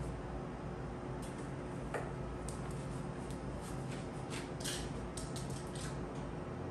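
Scattered light clicks and taps from hands with long nails handling a bucket hat and unfolding a pair of plastic sunglasses, more of them in the second half, over a steady low hum.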